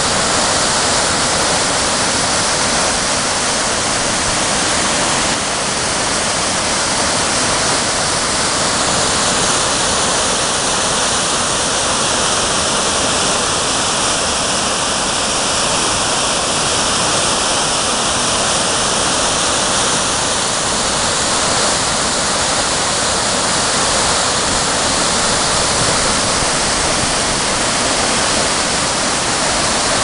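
Small waterfall on a rocky mountain stream: whitewater pouring over boulders in a loud, steady rush.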